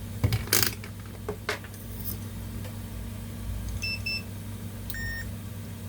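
A few handling clicks, then short electronic beeps near the end: a multimeter's continuity buzzer probing the motherboard's coil, a sign that the processor's power rail is still shorted.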